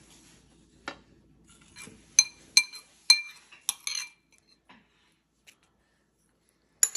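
Metal spoon clinking against a dish while serving out salsa. There are about five sharp, ringing clinks in quick succession in the middle, with a few softer taps before and after.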